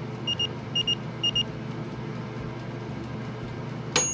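Thomson air fryer's fan running steadily, with three quick pairs of short high beeps in the first second and a half. Just before the end its dial timer rings a single bell ding that slowly dies away as the fan winds down, the signal that the cooking time is up.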